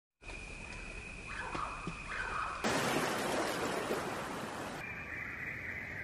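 Common cranes calling in a flock. About two and a half seconds in, a loud even rushing noise cuts in. It stops abruptly near the end, where other bird calls take over.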